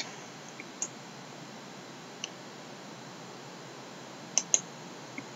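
Scattered faint computer mouse clicks over a low steady hiss, with a close pair of clicks about four and a half seconds in.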